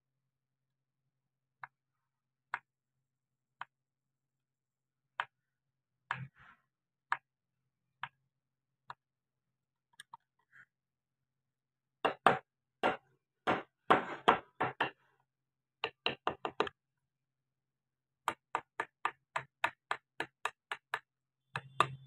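Wood-carving chisel cutting into the wood in small strokes while clearing out around a carved eyeball: sharp clicks and taps, spaced about a second apart at first, then in quick clusters, and near the end a steady run of about three taps a second.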